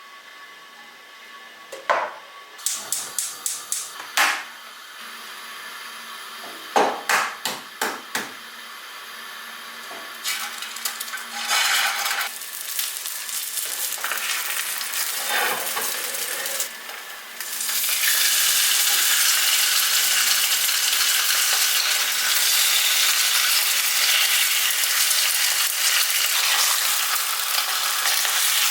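Two runs of quick, sharp clicks and knocks of kitchenware, then food sizzling in a hot frying pan, building up and turning into a steady loud sizzle about two-thirds of the way in.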